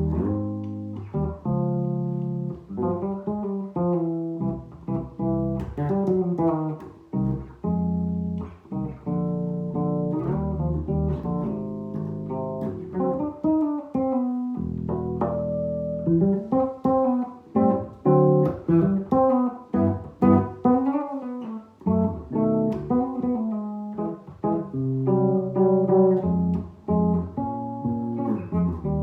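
Bass played solo with the fingers, plucking chords and a melody line together in an arrangement of a jazz standard.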